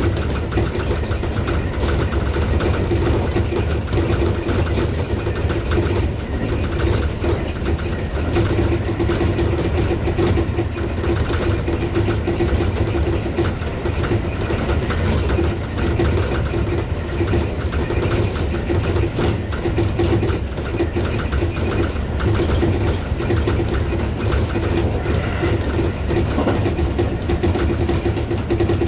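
Tobu 6050 series electric train running steadily at speed, heard from the cab: a continuous rolling rumble of wheels on rail with a steady mid-pitched hum and a thin high whine.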